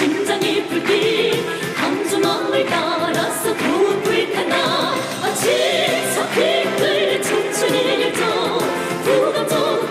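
Women's voices singing a melody with vibrato over a pop band accompaniment with a steady drum beat.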